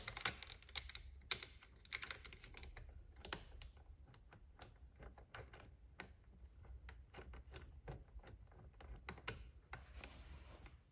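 Faint, irregular clicking and tapping of a hand wrench or ratchet on the bolts of a Honda Navi's left crankcase cover as they are loosened.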